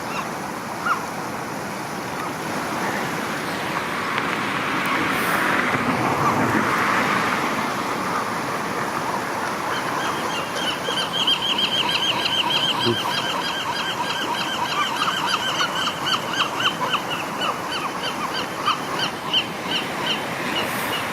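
River water running steadily, with waterfowl breaking into a fast series of repeated calls about halfway through that carries on to the end.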